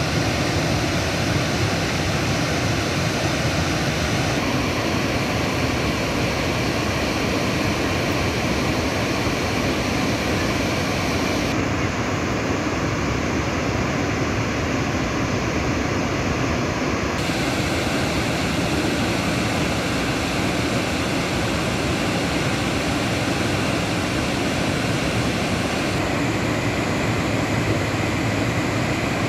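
Steady rush of Burney Falls, a waterfall pouring into its plunge pool, an even wash of water noise with no breaks. The hiss turns duller for several seconds near the middle.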